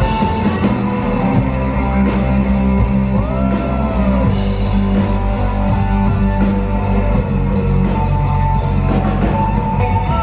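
Rock music with guitar, steady and loud, with a note bending up and back down about three seconds in.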